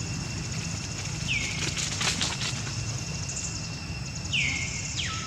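Forest ambience: a whistled animal call that drops quickly in pitch and then holds a steady note, heard twice about three seconds apart, with a lower call of the same shape near the end. Under it runs a steady high-pitched drone, with a brief crackling rustle about two seconds in.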